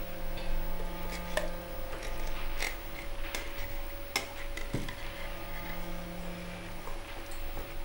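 Metal fork clinking and scraping against a tin can as food is picked out of it: a handful of short sharp clicks spread over a low steady hum.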